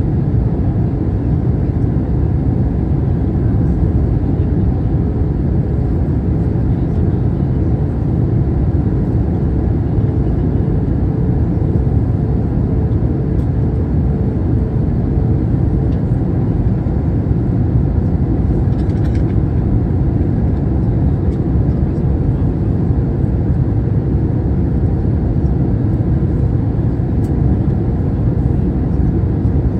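Steady airliner cabin noise during descent: an even, low rumble of engines and rushing air, with a faint steady hum.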